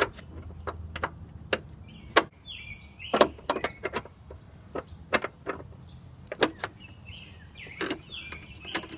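Irregular sharp metal clicks and taps, about one or two a second, from a wrench being worked on the clutch line's fitting at a Honda Civic's clutch master cylinder to loosen it.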